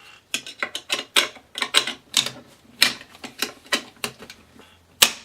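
Irregular sharp metal clicks and clacks of an AK-74-pattern rifle being reassembled, with the dust cover fitted back onto the receiver. The loudest clacks come about three seconds in and near the end.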